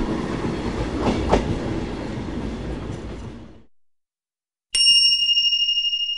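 Train running along a railway line, a steady rumble with some clatter, fading out about three and a half seconds in. A second later a single high chime strikes and rings, slowly dying away.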